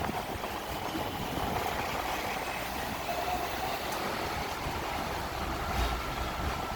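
Hong Kong double-decker electric tram running, a steady rumble of wheels on the rails with a faint whine in the second half and a low bump about six seconds in.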